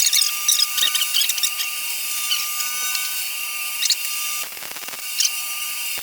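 Stick welding arc crackling and sizzling steadily on steel as a bead is run; the arc stops about four and a half seconds in, followed by a few clicks.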